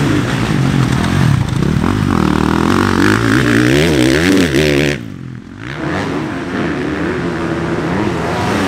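Motocross bike engines revving hard, the pitch rising and falling repeatedly as the throttle is worked. About five seconds in the sound briefly drops and turns duller, then the revving picks up again.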